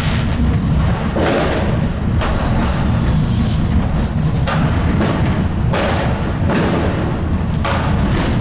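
New Year's Eve fireworks going off around a moving tram: a string of sharp bangs from firecrackers and rockets, roughly one a second, over the tram's steady low running rumble.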